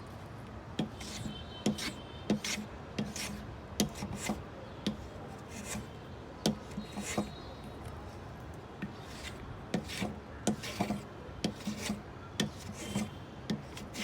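Hand tool working wood in short, irregular scraping strokes, about one or two a second, each with a sharp click.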